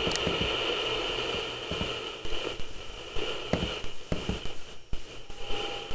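Old clock radio's speaker giving a steady hiss of static with scattered crackles and clicks, a sign that its controls need cleaning. A faint steady tone comes in near the end.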